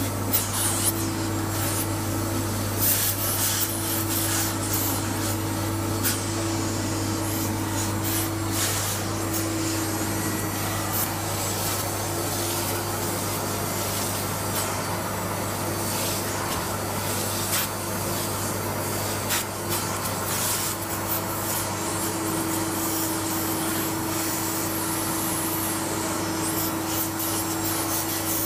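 Hot-water upholstery extraction machine running steadily while its hand wand sprays and vacuums water out of a fabric office chair seat. The wand head rubs and scrapes across the upholstery, with short hissing spurts over a constant hum.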